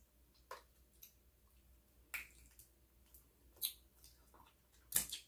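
Wet mouth smacks and clicks of someone chewing seafood-boil food, four short sharp smacks spaced about a second and a half apart.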